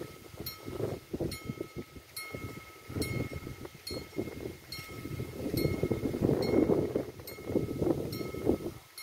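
Italian level crossing warning bell ringing, a repeated ding about once a second, the sign that the crossing is active and a train is due. Under it runs an uneven low rumble, loudest in the middle.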